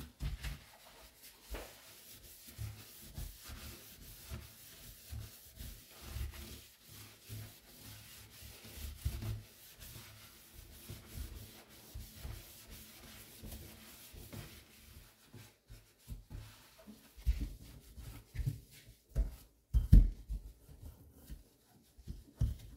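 Kitchen sponge scrubbing a stainless steel sink drainboard and chrome faucet: irregular rubbing strokes with soft low thumps, and a few louder knocks near the end.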